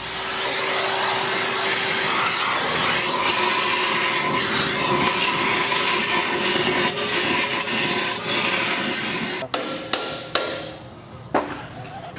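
Tire shop machine running with a loud, steady hissing whir and a faint hum, cutting off after about nine seconds, followed by a few sharp knocks.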